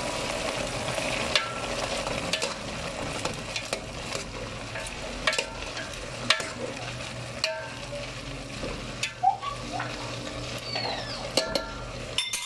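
Cabbage, carrots and other vegetables frying in an aluminium pot while being stirred and tossed, with a steady sizzle and frequent short clicks and knocks of the utensil against the pot.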